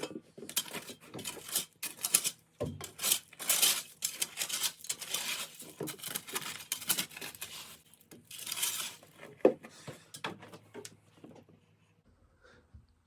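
Digging into the dirt over a buried water line: a dense run of irregular scrapes and clinks that stop about twelve seconds in.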